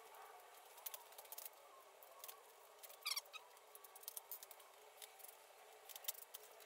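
Faint, scattered clicks and taps of flat-pack cabinet parts being handled and wooden dowels being pushed into the panel holes, with a brief squeaky scrape about three seconds in.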